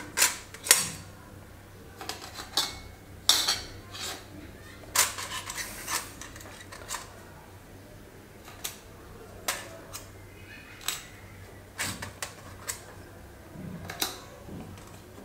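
Silver coins clinking as they are picked one by one from a stainless-steel plate and set down on rice in another steel plate: light metallic clinks and taps at an uneven pace, about one a second.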